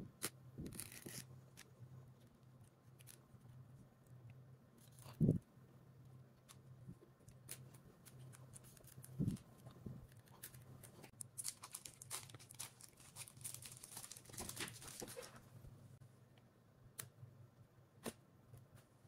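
Small scissors snipping and slitting the thin plastic shrink-wrap on a phone box, with faint crinkling of the film and scattered light clicks. A longer stretch of tearing and crinkling comes about halfway through, and two soft thumps come before it.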